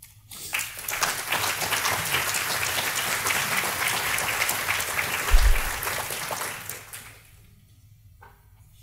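Audience applauding at the end of a talk, starting about half a second in and dying away near the end, with a short low thump about five seconds in.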